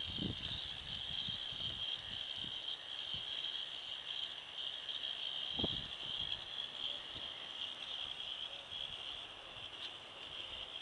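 K'nex kinetic sculpture running, its 12 V motors and plastic gears giving a steady high whir, with a faint knock about half way.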